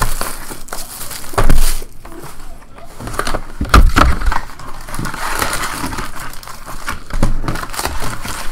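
Plastic shrink wrap torn off a cardboard trading-card box, then the lid flap opened and the card packs crinkling as they are handled and pulled out. There are sharp knocks about one and a half seconds in and again near four seconds in.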